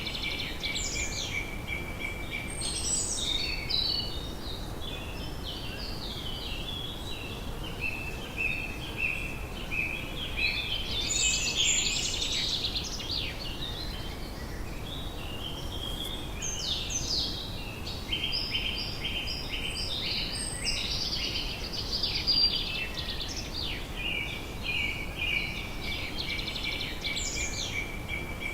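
Evening outdoor ambience: several birds singing and chirping, their calls overlapping and coming in waves, over a steady low background noise.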